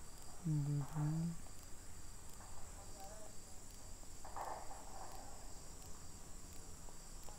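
Crickets chirping in the background: a faint, steady, high-pitched trill with an evenly repeating pulse. A brief low voice sound of two syllables comes about half a second in.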